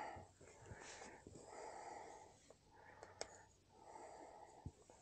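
A man breathing heavily with effort, about four drawn-out breaths, while prying at a very tight tyre bead, with a couple of faint sharp clicks from the tyre lever on the rim.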